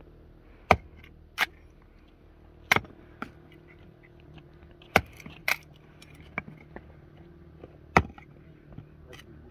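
Small hatchet chopping into an upright log to split kindling: about nine sharp knocks of uneven strength, spaced irregularly, with lighter taps between the heavier blows.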